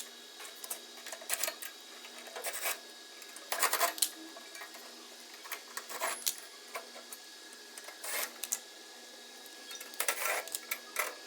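Scattered metallic clicks and rattles of screws being taken out of a vending machine's panels, coming every second or two, some in quick clusters.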